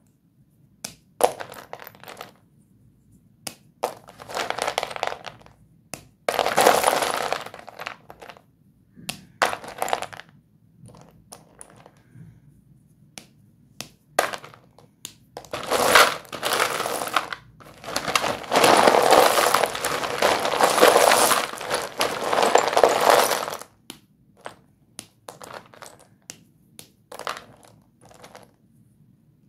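White dustless school chalk (Doms) being crushed and broken between the fingers: crunching and grinding in uneven bursts, with two longer crunches, one around six seconds in and a long one from about sixteen to twenty-three seconds. Between them come short clicks of chalk pieces knocking together.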